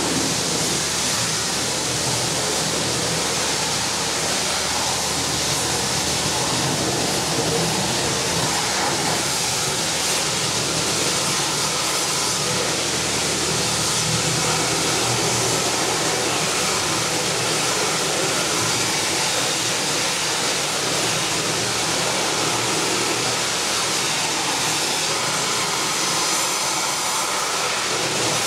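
Pressure washer spraying: a steady hiss of water spray with a low machine hum underneath.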